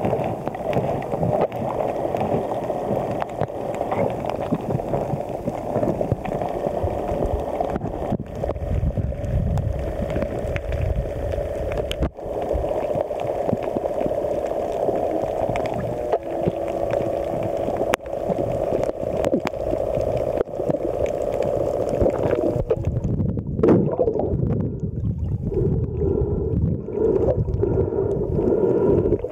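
Underwater water noise picked up by a camera in the sea: a steady, muffled rush with some gurgling. About three quarters of the way through, its character changes abruptly and the higher hiss drops away.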